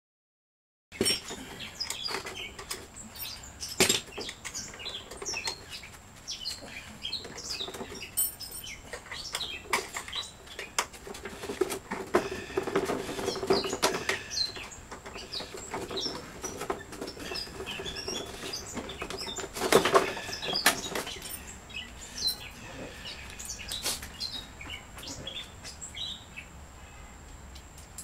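Clinks, knocks and rattles of sheet-metal parts being handled while an old window air conditioner is stripped by hand for scrap, with birds chirping throughout.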